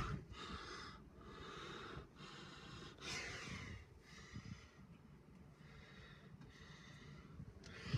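Faint breathing close to the microphone, soft rushes of breath coming about once a second.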